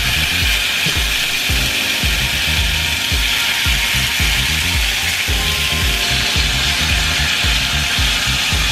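Strips of marinated steak sizzling steadily in a hot cast iron skillet, under background music with a repeating bass beat.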